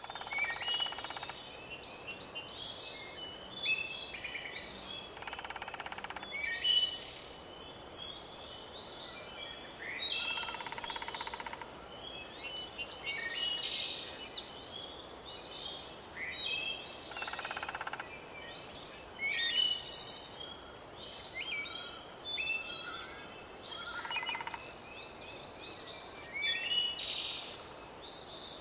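Several birds singing and chirping at once, a steady stream of short overlapping whistles and chirps, some sliding in pitch, over a faint even background hiss.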